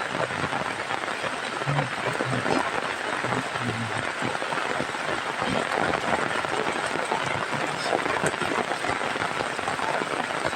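Heavy rain falling steadily: a dense, even hiss of drops striking surfaces.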